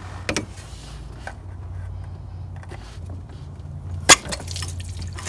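Hand-held metal parts and tools clinking against the engine as the thermostat is pulled from its housing: two light clicks, then one sharp metallic clack about four seconds in, over a steady low hum.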